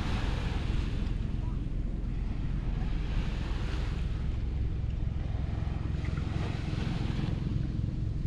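Sea waves washing onto a beach, the wash swelling and fading about every three to four seconds, over a steady rumble of wind on the microphone.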